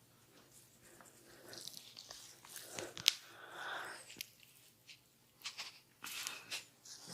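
Hands massaging an oiled scalp and hair. There are short rubbing sounds and scattered light clicks, with one sharp click about three seconds in.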